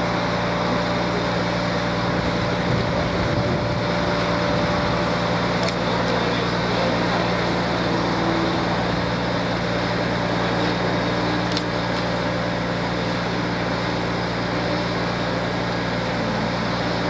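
An engine running steadily at constant speed, giving an even low drone, with a couple of faint clicks.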